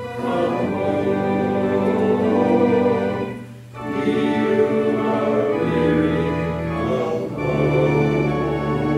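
A hymn sung by voices with instrumental accompaniment, in long held phrases. It dips briefly about three and a half seconds in, between lines.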